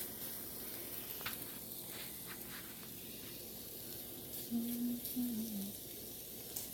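Large raw shrimp sizzling in a hot nonstick frying pan, with a few light clicks and scrapes of a spatula as they are pushed around. A brief low hum comes a little past halfway.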